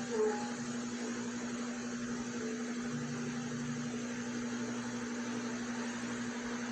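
Steady machine hum: a constant low tone over an even hiss, with a brief short higher sound about a quarter second in.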